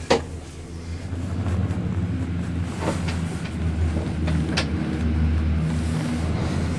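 Gondola cabin running along its cable, heard from inside the cabin: a steady low rumble and hum. A sharp knock comes right at the start, and two lighter clacks follow about three and four and a half seconds in.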